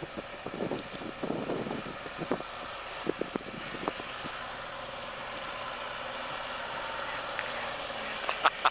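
Motorised carriage (a veteran-car style motor coach) driving up, its engine running steadily and growing slowly louder as it approaches and draws level, with a few short knocks along the way.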